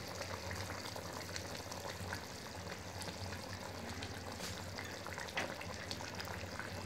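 A pan of potato, pea and minced-meat curry boiling hard on a gas stove: steady bubbling with small crackles and pops, a low hum underneath.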